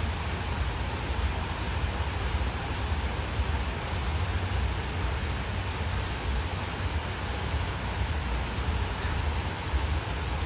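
Steady splashing hiss of small fountain jets bubbling up through a shallow pool, over a continuous low rumble.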